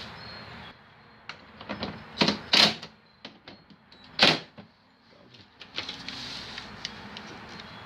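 A run of light clicks and knocks, with three louder sharp knocks about two, two and a half and four seconds in, from tools and parts being handled during the hitch installation.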